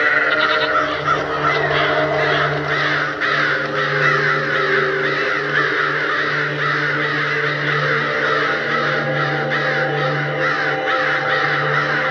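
A huge flock of birds calling together in a dense, unbroken din of many overlapping falling calls, over a low steady drone.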